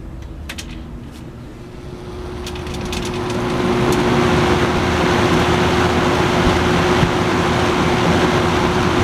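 Vintage Robeson 20-inch box fan, model 2306, switched on at high speed: a steady motor hum with a few light clicks, then the rush of air from the blade rising over the first few seconds as it spins up and running steadily after that.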